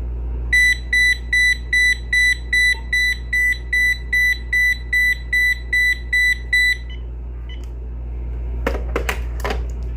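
Uniden EXAI7980 900 MHz cordless phone handset sounding its paging tone after the base's page button is pressed: about fifteen evenly spaced high beeps, roughly two and a half a second, for about six seconds, then stopping. A few sharp clicks follow near the end.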